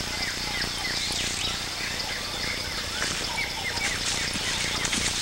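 Birds chirping: many short, falling whistled notes repeating throughout, over a steady hiss.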